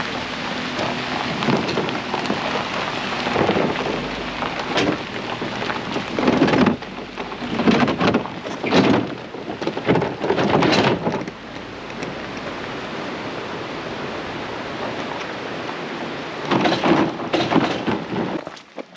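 Rumble of a vehicle and trailer on a rough, potholed gravel road, with wind on the microphone. Repeated jolts and rattles come every second or so, with a steadier stretch past the middle.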